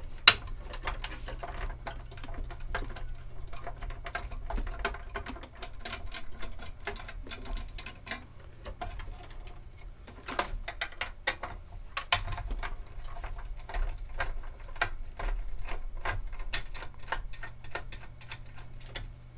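Screws being turned out and cables and plastic parts handled inside a Dell Dimension 9200 tower case. It is a run of irregular small clicks, ticks and rattles over a steady low hum.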